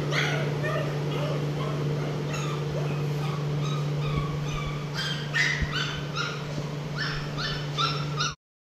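Young puppy crying in short high-pitched yelps and whimpers, several a second, coming thicker in the second half, over a steady low hum; the sound cuts off abruptly near the end.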